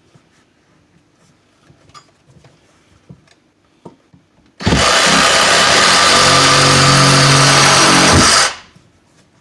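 Power saw with a fine-tooth metal-cutting blade cutting drywall: it starts suddenly about halfway in, runs steadily for about four seconds and stops near the end. A few light taps come before it.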